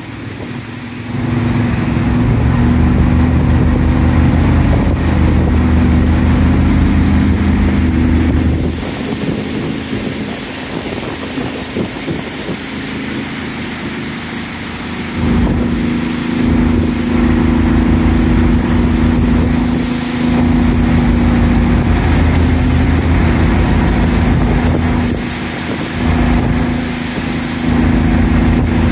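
Outboard motor driving an aluminium boat at speed, its engine note steady over the hiss of spray and water along the hull. The engine swells about a second in, drops back for several seconds, then comes up strongly again, with brief dips later on.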